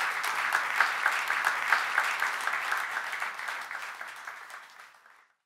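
Audience applause in a lecture hall: dense clapping that fades out near the end and then cuts to silence.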